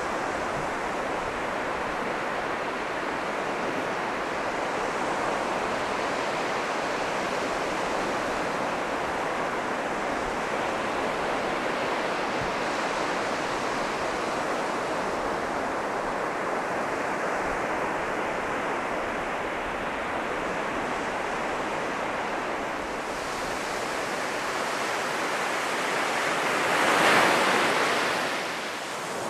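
North Sea surf breaking and washing onto a sandy beach in a steady rush, with one louder wave swelling and breaking near the end.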